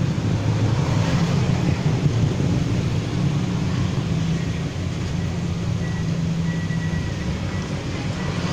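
A steady, low mechanical rumble.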